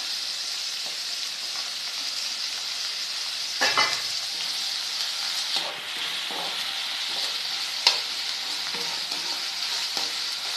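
Chopped onions and curry leaves sizzling in hot oil in a pan, a steady hiss, being sautéed and stirred, with a few brief scrapes of the spatula against the pan.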